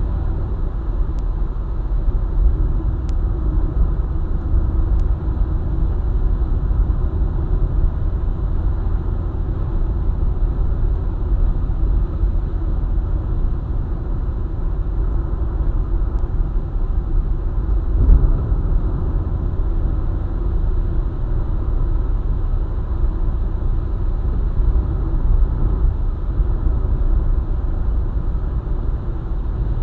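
Car driving at speed on a highway: a steady low rumble of tyre, road and engine noise, with one brief thump about two-thirds of the way through.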